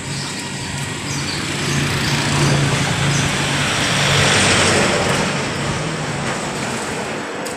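Street traffic noise: a motor vehicle's engine hums and the noise swells as it passes close by, loudest around the middle, then eases off.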